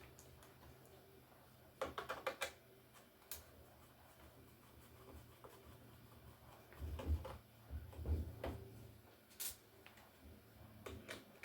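Faint clicks and knocks of a Toshiba T4700CT laptop's casing being handled and worked apart: a quick run of small clicks about two seconds in, single clicks now and then, and low bumps around seven to eight seconds in.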